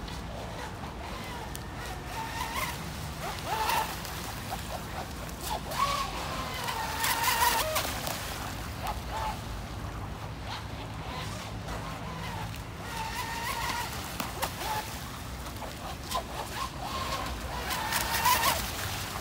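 Radio-controlled model boat running on a pond, its motor and hissing spray growing louder as it passes close, once near the middle and again near the end.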